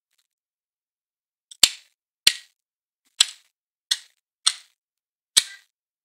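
Black woodpecker chiselling at tree bark with its bill: six loud, separate pecks at irregular intervals of roughly a second, not a drumming roll.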